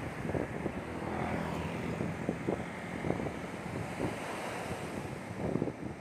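Small waves breaking and washing up a sandy beach, with wind noise buffeting the microphone.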